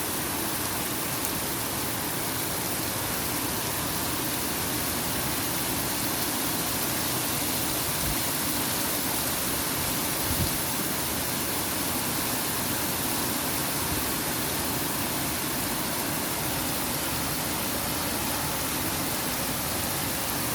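Steady rain falling, an even hiss with a small bump about ten seconds in.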